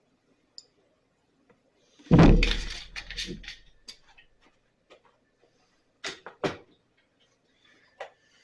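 Workshop handling noises: one heavy thump about two seconds in, then a rattle of clicks and two sharp knocks near the middle, as a backpack blower and tools are handled on the bench.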